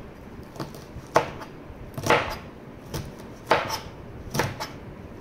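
Kitchen knife chopping long beans on a white cutting board: several sharp knocks of the blade against the board, unevenly spaced, roughly one every second.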